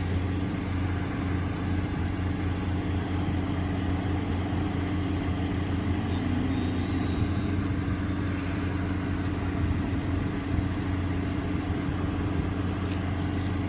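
A vehicle engine idling steadily close by, a low even hum, with a few light clicks near the end.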